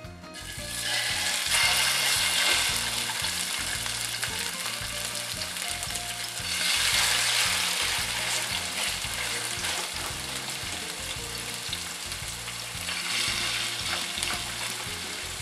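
Marinated chicken tocino pieces sizzling in hot oil in a frying pan. The sizzle starts about half a second in as the chicken goes in, then swells a few times as the pieces are moved with tongs.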